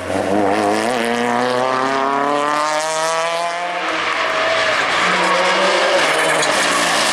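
Rally car engine accelerating hard, its pitch climbing steadily for about three seconds. About four seconds in it changes to a rougher, noisier sound.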